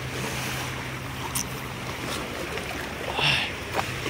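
Shallow seawater washing and lapping around beach boulders, a steady rushing sound, with a short louder sound about three seconds in.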